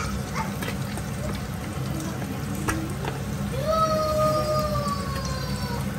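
Small whole fish shallow-frying in hot oil, a steady sizzle, with a few light knocks of a wire skimmer against the pan as the fish are moved. Past the middle, a held tone that slowly falls in pitch sounds over the sizzle for about two seconds.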